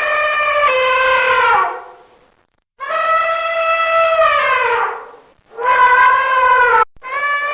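Elephant trumpeting: four loud, high calls in a row, separated by short breaks. The first is already sounding at the start. The first two slide down in pitch as they fade, and the last begins near the end.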